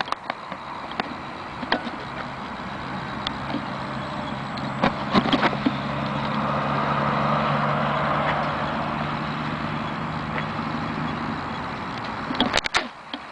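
Electric motors and propellers of a twin-motor foam RC P-38 Lightning in flight: a whirring that swells as the plane passes, loudest a little past halfway, then fades. A few sharp clicks come near the start, around five seconds in, and near the end.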